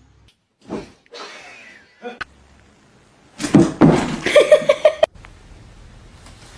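A few brief knocks, then a person laughing loudly in quick repeated bursts for about a second and a half, about halfway through.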